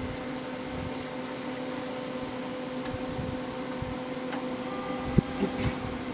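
Steady hum from a running Pit Boss pellet smoker's fan. A few sharp knocks near the end as the roast and a foil pan are handled at the open smoker.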